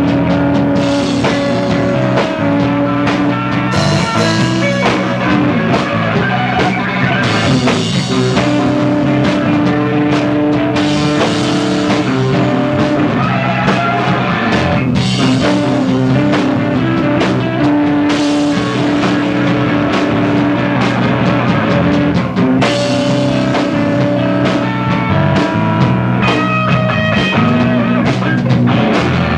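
A rock trio of drum kit, bass guitar and electric guitar playing loud, steady no-wave punk, with cymbal crashes every few seconds.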